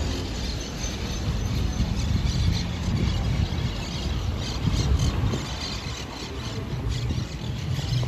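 Outdoor street ambience on a promenade beside a road: an uneven low rumble with faint, scattered high squeaks or chirps.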